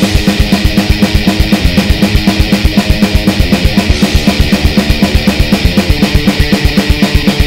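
Background music driven by a fast, steady drum-kit beat, about four hits a second, with bass drum and cymbals.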